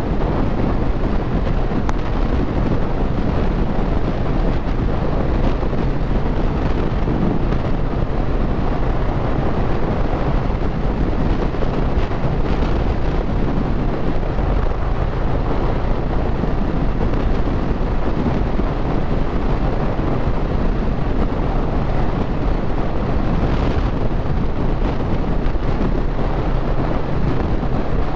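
Heavy wind rushing over the microphone on a motorcycle cruising at road speed, with the Triumph Speed Twin 1200's parallel-twin engine running steadily underneath.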